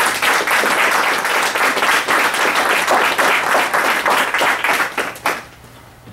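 Audience applauding, a crowd of hands clapping that dies away about five seconds in.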